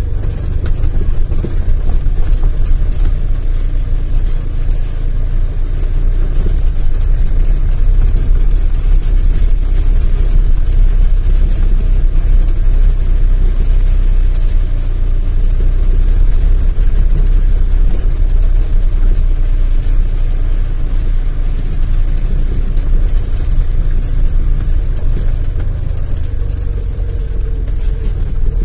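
Car engine and running gear heard from inside the cabin while driving slowly over rough ground: a steady low rumble.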